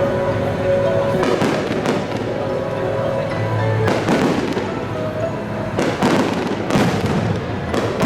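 Aerial fireworks shells bursting one after another, about half a dozen booms and crackles over the few seconds.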